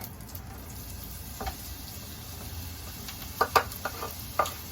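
Chopped leek frying in melted butter in a pan, a steady sizzle. A few sharp clicks against the pan come about three and a half seconds in and again near the end.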